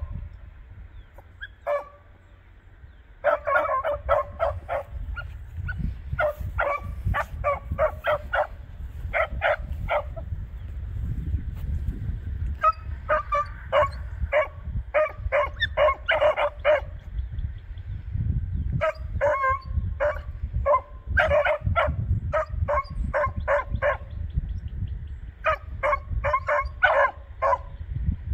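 Beagles giving tongue on a scent line: runs of short, rapid chop barks in bursts of several seconds, broken by brief pauses. A low, uneven rumbling noise runs underneath.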